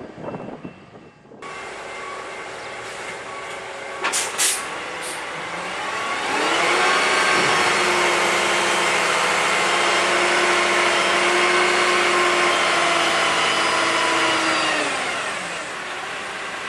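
Locomotive air horn on an EMD F59PHI sounding one long blast of about eight seconds, several tones at once, rising in about six seconds in and sagging in pitch as it cuts off, over the rumble of the approaching train. A few short sharp clicks come shortly before the horn.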